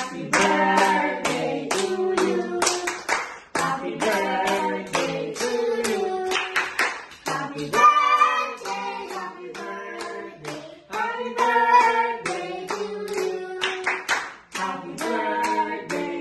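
Voices singing a song while hands clap along in a steady beat, about two to three claps a second.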